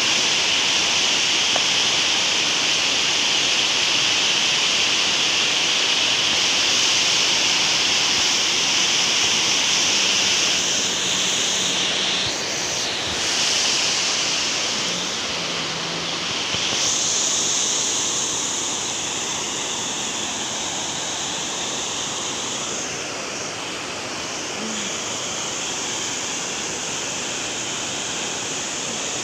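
Water pouring over a low concrete weir and churning in the pool below: a steady rushing of falling water.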